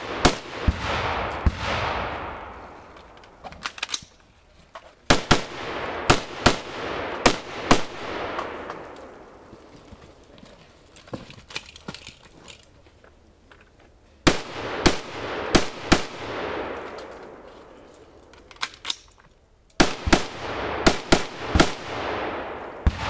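Rifle shots fired in four strings of several shots each, roughly a second apart: one at the start, one about five seconds in, one about fourteen seconds in and one near the end. Each shot trails off in a long echo, and there are a few faint clicks in the pauses between strings.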